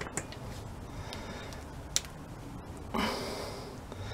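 Small clicks and light handling noises of metal parts on a Weasel starter motor being fitted together by hand, with one sharper click about two seconds in. A short rushing noise follows about a second later and fades away.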